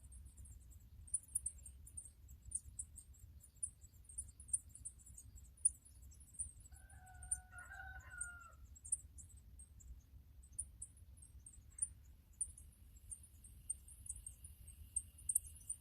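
A rooster crows once, about halfway through, a single call of about a second and a half. Under it runs constant, rapid, very high-pitched chirping, several chirps a second.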